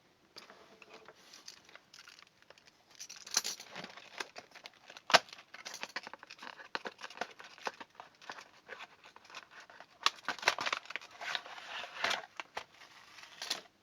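Packaging of a set of magnetic door/window alarms being opened by hand: irregular crinkling, tearing and clicking, with one sharp snap about five seconds in.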